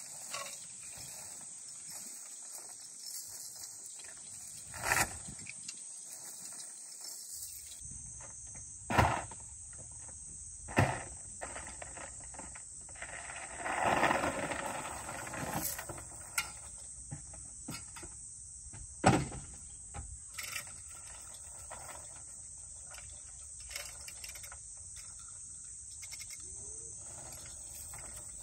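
Steady high trilling of insects, with a few sharp knocks and a short rattling stretch about halfway through from someone working up on a wooden gantry that holds a large log.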